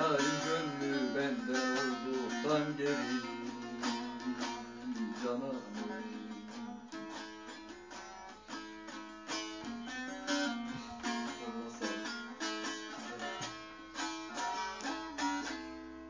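Bağlama (long-necked Turkish saz) played solo: a fast run of plucked and strummed notes.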